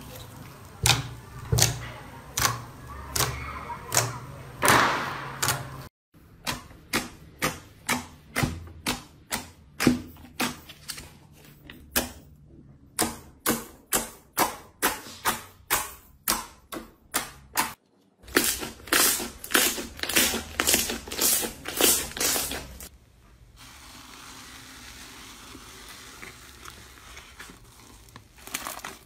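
Slime being squeezed, stretched and poked by hands: sharp wet clicks and pops of trapped air, in an even run of about two a second through the middle. A faster run of clicks follows, then a softer steady crackle near the end.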